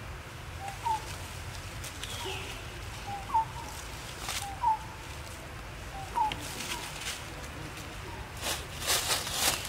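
Short, high animal chirps repeated every second or two, with a few crisp rustles of dry leaves, the loudest cluster near the end.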